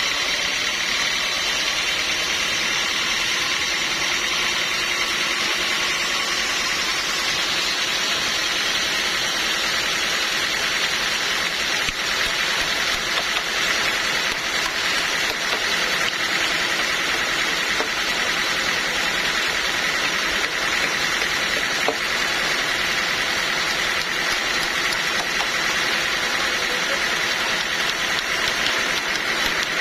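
Sawmill machinery running steadily, a continuous engine-like drone with a high whine that gets a little stronger about twelve seconds in.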